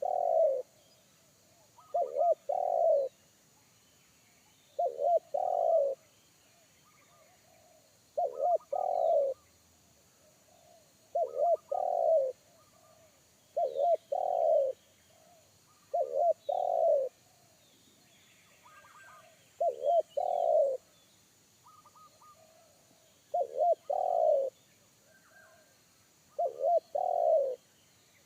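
Spotted dove (tekukur) cooing its deep, bass-heavy song, the phrase repeated about every three seconds: two short notes, then a longer drawn-out coo. Fainter chirps of small birds come between the phrases.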